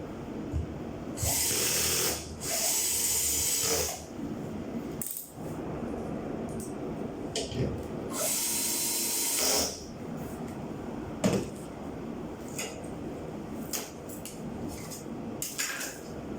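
Water sprayer hissing in three bursts of about one to one and a half seconds each, with small clicks and knocks of handling between them.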